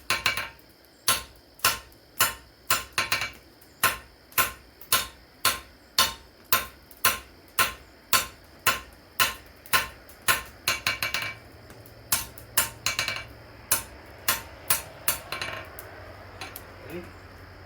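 Blacksmith's hand hammer striking hot steel on an anvil, about two ringing blows a second with an occasional doubled strike as the sides of the bar are squared up. The blows thin out and stop about fifteen seconds in.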